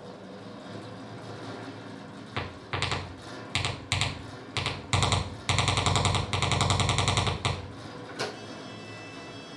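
Prepared, amplified hurdy-gurdy played in free improvisation: a quiet low hum, then from about two seconds in a series of harsh rattling bursts of very fast clicks. Short jabs build to two longer rattles of about a second each, with one last short burst near the end.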